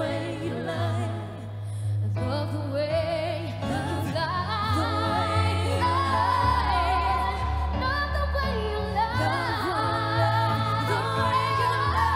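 Women's vocal group singing live over instrumental backing: long, ornamented notes with strong vibrato above a steady bass line that steps down to a lower note about halfway through.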